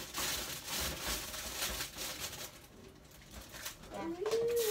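Soft knocks and handling noises at a kitchen sink, then a short hummed voice sound that rises and falls in pitch near the end.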